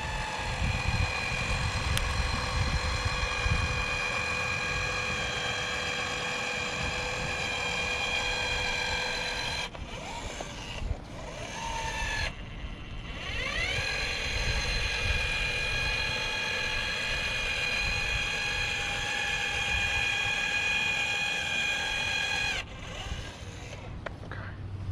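Powered urethane gun running as it lays a bead of windshield urethane. A steady motor whine stops about ten seconds in, starts again a few seconds later with a rising whine, and runs steadily until shortly before the end.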